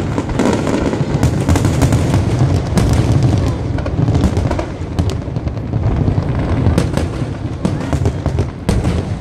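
Aerial fireworks display: shells bursting in quick succession, a constant deep booming with many sharp cracks over it.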